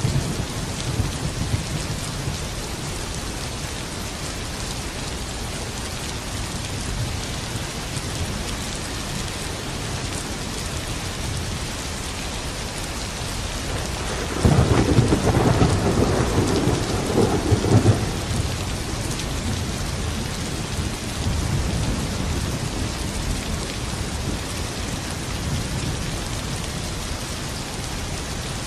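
Steady rain with low rolling thunder. About halfway through, a louder thunderclap rumbles for some three seconds before fading back under the rain.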